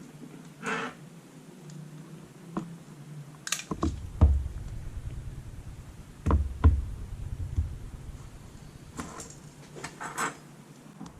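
Scattered clicks and taps of small tools and phone parts being handled during a smartphone repair, with a few dull low bumps against the work surface between about four and eight seconds in.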